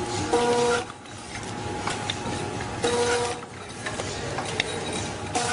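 Automatic liquid sachet packing machine running: a steady mechanical clatter with scattered clicks, and a short buzzing hum about every two and a half seconds, three times, keeping time with the machine's cycle.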